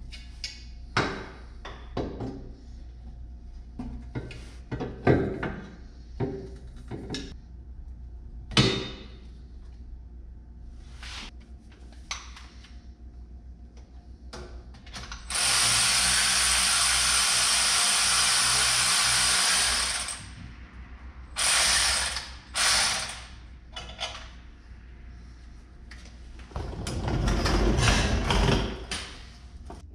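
Stainless steel exhaust pipe being fitted under a truck: scattered metal clunks and clicks of the tubing and tools against the chassis, then a power tool runs steadily for about five seconds, followed by two short bursts and a longer burst near the end, as fasteners are run down.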